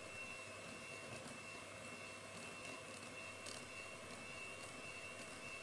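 Electric hand mixer running steadily, its beaters whipping powdered whipped-cream mix in a stainless steel bowl as the cream stiffens; a steady motor hum with a thin high whine.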